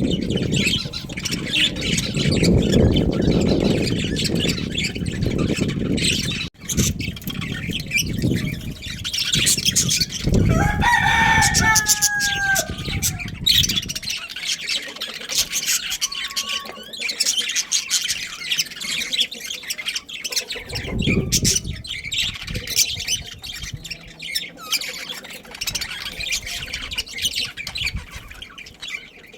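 Budgerigars chirping and chattering busily, with one longer pitched call that falls slightly about ten to thirteen seconds in. A low rumbling noise sits under the chirps for the first few seconds.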